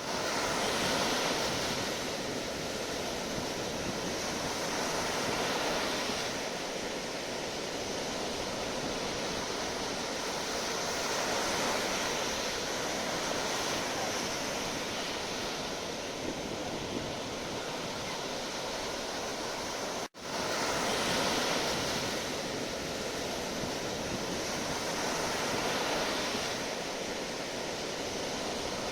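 Sea waves breaking and washing on the shore, a steady rush that swells and eases every few seconds. The sound cuts out for an instant about twenty seconds in.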